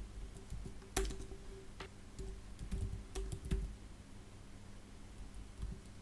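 Computer keyboard being typed on in short, scattered keystrokes, the sharpest about a second in, over a faint steady hum.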